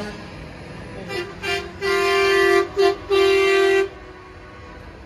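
Semi truck's air horn sounding a single steady tone in a run of blasts: two short toots, a long blast, a short one and a final long one.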